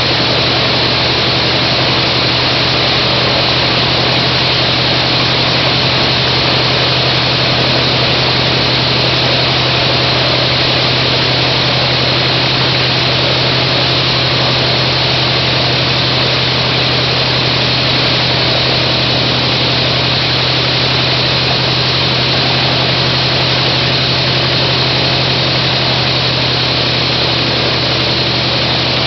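An engine running steadily at constant speed: a loud, even drone with a low hum that does not change.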